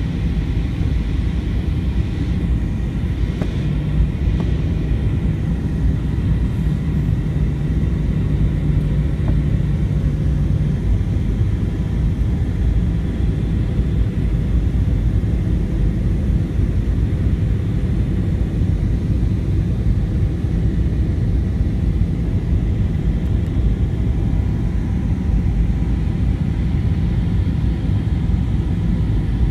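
Airbus A320-200 cabin noise on the descent: a steady low rumble of the engines and the airflow, heard from inside the cabin. A low hum stands out above it for several seconds near the start.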